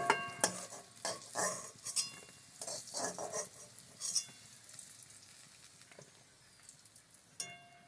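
Metal spatula scraping and clinking against a steel kadai as fried moringa drumsticks are lifted out of hot oil, with a light sizzle of the oil. The scrapes come often over the first few seconds, then thin out, with one more ringing clink near the end.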